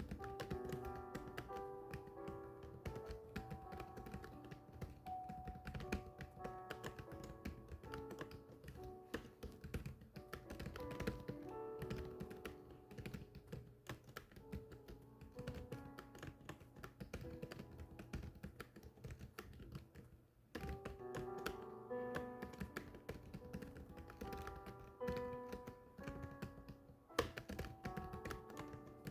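Continuous fast typing, a dense irregular clatter of key strikes, over background music with melodic notes. Both drop out briefly about twenty seconds in.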